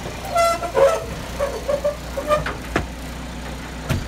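Telehandler engine running steadily, with several sharp metal knocks as its pallet forks are worked against a concrete porch step. A few short high notes sound in the first second or two.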